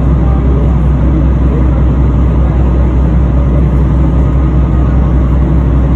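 Passenger ferry's engine running with a steady low drone, heard on board while the boat is under way.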